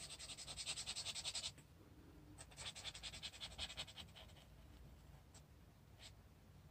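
Marker nib scribbling quickly back and forth on sketchbook paper as it fills in colour, a rapid scratchy rasp of about a dozen strokes a second. It comes in two spells of about a second and a half each, then a couple of single light strokes near the end.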